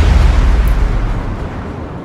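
End of an intro music sting: a deep boom-like hit whose rumble and noise fade away steadily.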